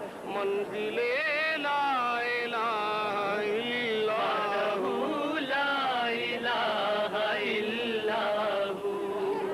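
A devotional chant sung in long, ornamented phrases with vibrato, the voice wavering up and down within each line and pausing only briefly between phrases.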